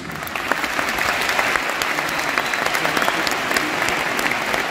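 Audience applauding: many hands clapping in a dense, steady patter that breaks in right after the speaker's words.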